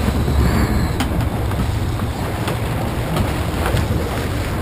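Steady low rumble of a sport-fishing yacht's engines under way, with wind and water noise over the deck.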